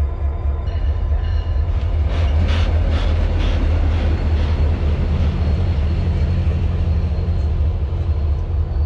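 Passenger train running along the track: a steady, loud low rumble, with a run of clacks about two seconds in.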